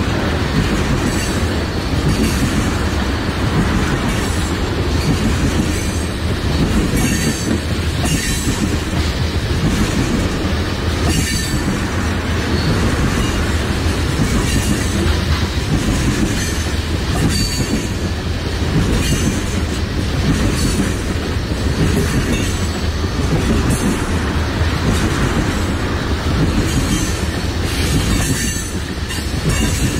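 Freight train of tank cars rolling past: a steady heavy rumble with the clatter of wheels over rail joints, and a thin high wheel squeal now and then.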